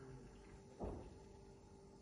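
A single soft knock about a second in, as the blender jug is handled against the kitchen counter, over faint room tone.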